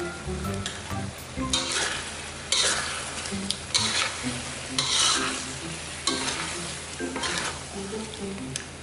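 Raw chicken pieces being stirred with a metal spoon through red curry paste frying in coconut cream in a pan. The sizzle swells with each stroke, roughly once a second.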